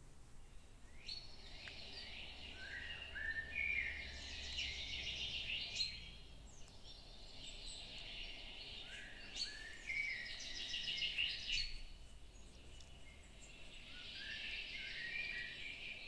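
A songbird singing in three long phrases of quick chirps and trills: one about a second in, one around seven seconds in and one near the end.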